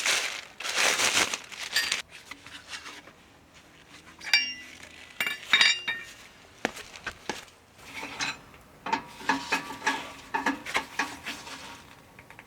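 Hard metal objects clinking and rattling as they are handled, with a few ringing clinks around four to six seconds in and a busier run of clinks near the end; a rustling sound at the start.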